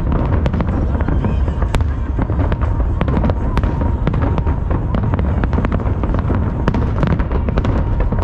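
Aerial firework shells bursting in rapid succession: many sharp cracks over a steady deep rumble.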